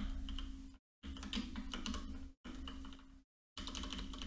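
Computer keyboard keys clicking in short bursts of typing. The sound cuts out completely between bursts, and a faint steady hum runs under the clicks.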